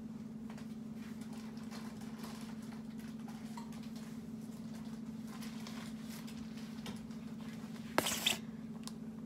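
Faint rustling and handling noises over a steady low hum. About eight seconds in, a head of lettuce is set down on the counter close by with a sharp knock and a brief leafy rustle.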